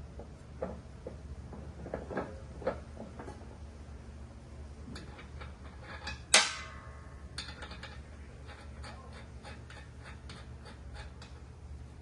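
Metal clinks and knocks of hand tools and parts being handled. One loud metallic clank about six seconds in rings on briefly, followed by a run of light, evenly spaced ticks.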